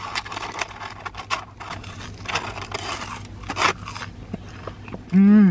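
A person chewing fries, with the paper fry wrapper rustling in the hand. A brief hummed vocal sound comes near the end.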